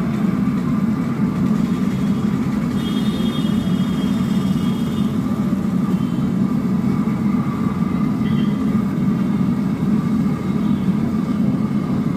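Steady low roar from a large kadhai of banana chips deep-frying in hot oil over an open burner flame.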